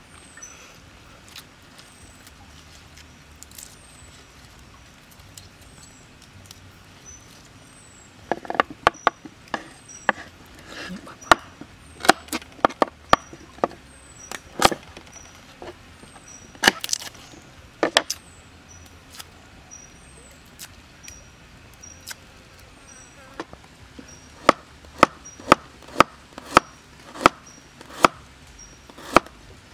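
A kitchen knife chopping garlic cloves on a wooden cutting board. The sharp knocks start about eight seconds in and come irregularly at first, then settle near the end into a steady run of about one and a half chops a second. A short high chirp repeats about once a second throughout.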